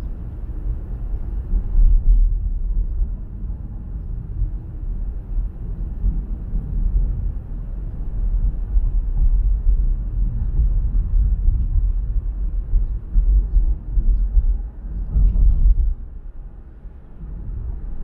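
Low, uneven rumble of road and wind noise from a moving car, swelling and easing as it goes and dipping briefly near the end.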